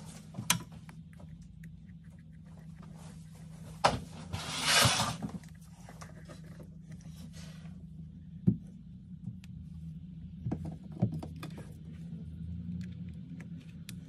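Scattered light taps and clicks of hands handling a phone and a glue tube on a work mat, with one noisy hiss lasting about a second a few seconds in, over a steady low hum.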